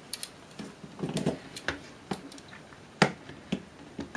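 Irregular clicks and knocks of a metal module plate being handled and slid back into its slot in a metal electronics chassis, the sharpest about three seconds in.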